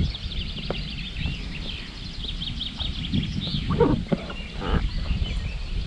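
Small birds chirping in quick trills, over a low rumble, with a few short knocks about four seconds in.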